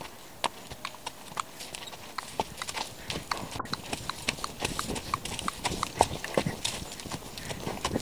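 Hoofbeats of a ridden horse on a dirt forest track, sparse and light at first, then coming faster and louder from about three seconds in as the horse picks up pace.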